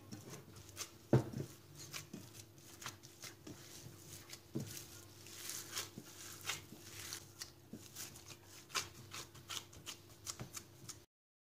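A gloved hand kneading seasoned raw ground beef in a bowl: irregular wet squishes and slaps, with one louder thump about a second in. The sound cuts off abruptly near the end.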